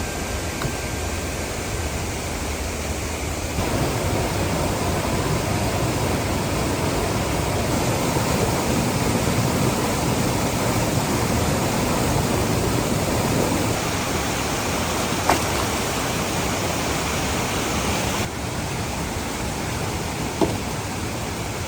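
Steady rushing roar of a waterfall, stepping louder a few seconds in and dropping back near the end, with two sharp knocks over it.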